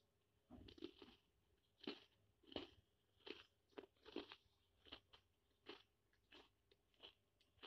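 Faint scratching of a pencil on paper, drawn in short strokes. There are about a dozen strokes, one every half to three-quarters of a second, beginning about half a second in.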